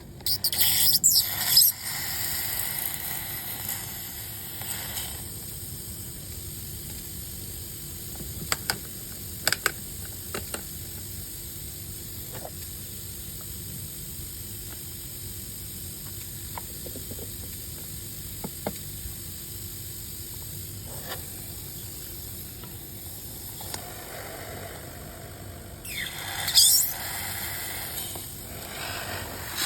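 Pressurised gas hissing out in a loud burst at the start and again near the end, its pitch sweeping, over a steady low hum, with a few scattered clicks in between.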